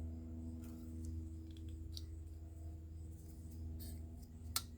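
A few faint clicks of a folding knife being handled, with one sharper click near the end, over a steady low hum.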